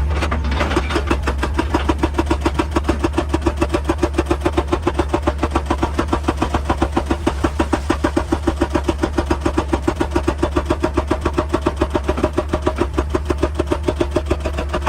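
Excavator-mounted hydraulic rock breaker hammering rock in a fast, even rhythm of about six blows a second, over the machine's steady low engine drone. It starts about half a second in.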